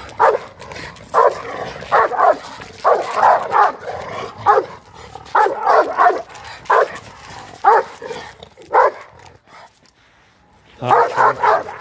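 Dog barking at another dog in quick, repeated bursts as a Rottweiler and an American Staffordshire terrier meet on leash. The barking stops for about a second and a half near the end, then starts again.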